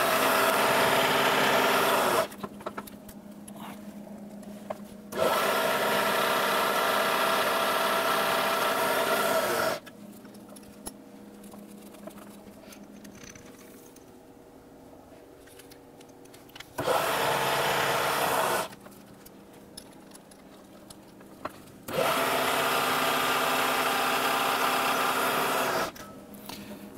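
Vertical milling machine spindle running as a drill cuts holes in a metal index plate, in four separate stretches of a few seconds each with a steady motor hum; the quieter gaps between hold a few clicks as the rotary table is cranked round to the next angle.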